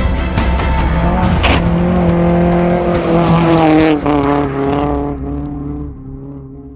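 Classic rally car, a Citroën DS, running hard on a gravel stage as it passes and pulls away, its engine note shifting and a few sharp crackles early on. The sound fades away over the last couple of seconds.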